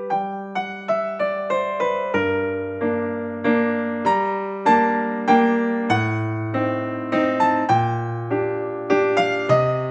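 Background music: a gentle piano (electric piano) melody of struck notes over sustained bass notes.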